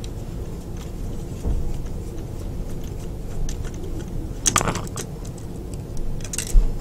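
Screwdriver backing a small screw out of a plastic MP-11NR Ramjet figure's torso: plastic creaking and scraping with a few sharp clicks of plastic and metal, the loudest about four and a half seconds in and again near the end, over a steady low hum.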